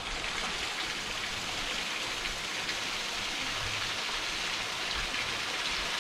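A small trickle of water falling between boulders and splashing into a shallow rock pool, a steady, even splashing.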